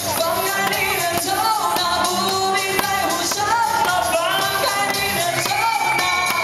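Man singing live into a handheld microphone over a pop backing track with a steady beat, amplified through the stage PA.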